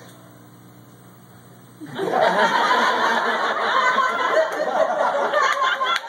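A small club audience bursts into laughter about two seconds in and keeps laughing loudly. Before that it is fairly quiet.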